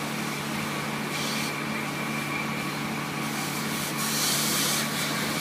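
A fire engine running steadily while a fire hose sprays water, the spray hiss rising in two short spells, about a second in and again about four seconds in.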